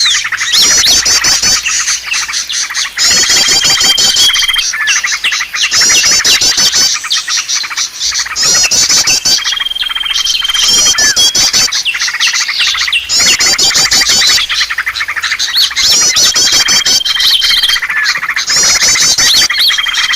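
A loud, dense chorus of small songbirds chirping and twittering rapidly, from a bird-lure recording. The same run of phrases repeats every six or seven seconds, each time with a held high whistle lasting about a second.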